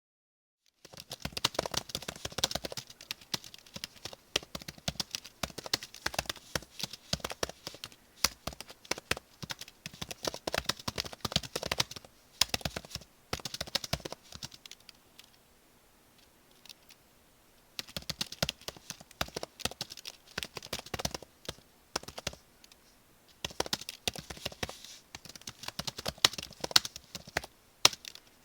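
Typing on a computer keyboard: rapid key clicks in quick runs, starting about a second in, with two short pauses partway through.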